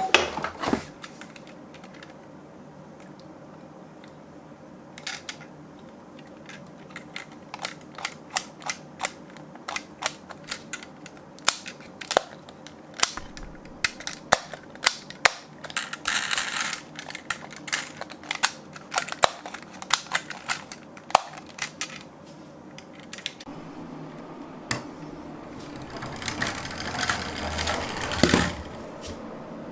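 Toy cars clicking and clattering as they run on a slope track: many sharp, irregular clicks, with two stretches of rolling rattle, one near the middle and a longer one near the end.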